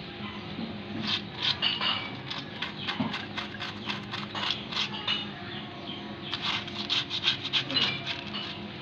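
Small brush scrubbing the rusty backing plate of a drum brake with detergent suds in short, quick scratching strokes, coming in bunches about a second in and again near the end.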